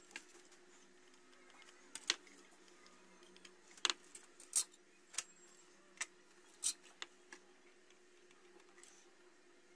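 Scattered light clicks and taps, about eight in all and loudest in the middle stretch, from an inverter circuit board being handled and turned over by hand, over a faint steady hum.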